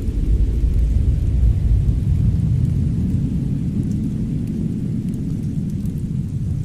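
Fireplace fire making a dense, steady low rumble, with faint, scattered crackles.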